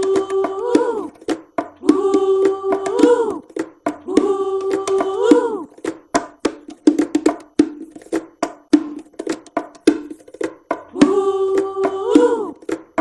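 Cartoon soundtrack of voiced or sung notes and wooden clicks. A held note bends away at its end and comes back about every two seconds, with a stretch of clicks and short notes only in the middle.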